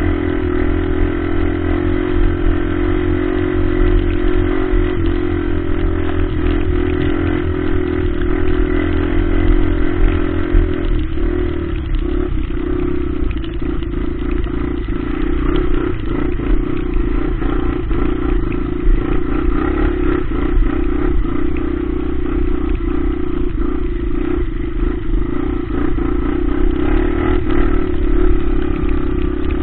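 Four-stroke dirt bike engine idling steadily while the bike stands still.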